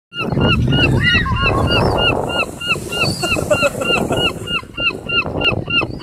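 A flock of gulls calling while they squabble over food. One bird gives a fast, steady run of short calls, about four a second, while other gulls call over it, with a low rumble underneath.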